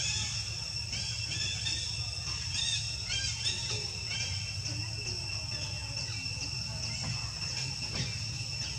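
Outdoor ambience: a steady high insect drone with scattered short chirps over a low hum.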